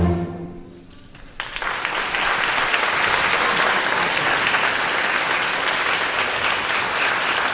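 A string orchestra's final chord cuts off and rings away in the hall reverberation; about a second and a half in, the audience breaks into steady applause.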